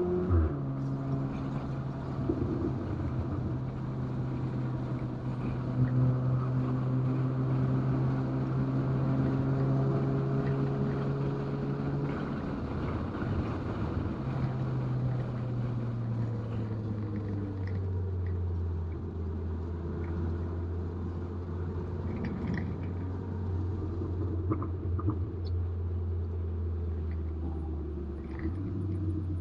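2019 VW Golf R's Stage 2-tuned turbocharged 2.0-litre four-cylinder engine running on a race track. The pitch drops sharply right at the start, holds steady for about twelve seconds, breaks briefly, then slowly falls and settles lower as the car slows.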